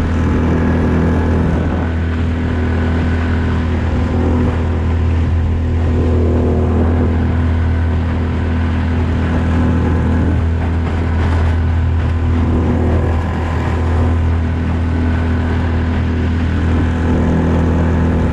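Small boat's outboard motor running steadily while the boat is underway: an even, constant drone.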